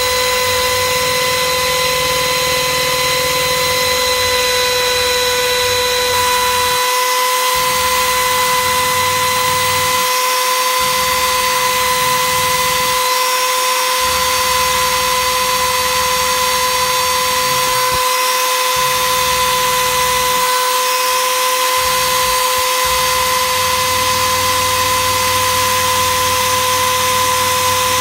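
Electric power tool motor running steadily at high speed, a constant whine, with a lower rumble underneath that drops out several times.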